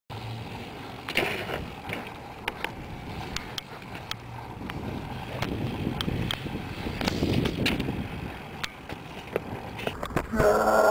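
BMX bike tyres rolling on asphalt, with many sharp clicks and knocks scattered through. Just before the end a loud pitched sound with several tones comes in.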